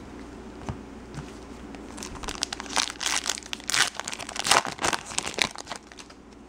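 Foil wrapper of a baseball card pack being torn open by hand, crinkling and crackling. The crackles start about two seconds in and come thick and irregular until near the end.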